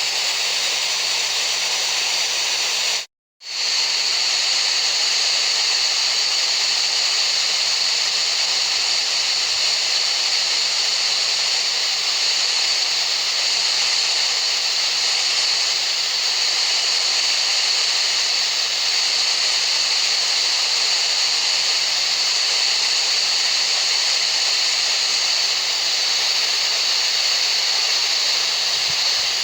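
Steady, even hiss of tinnitus-masking noise with a bright, high-pitched edge. It cuts out completely for a split second about three seconds in, then resumes unchanged.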